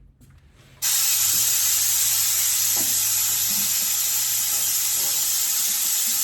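Steady compressed-air hiss from an air-powered suction tool draining the fuel from a walk-behind mower's tank; it switches on suddenly just under a second in.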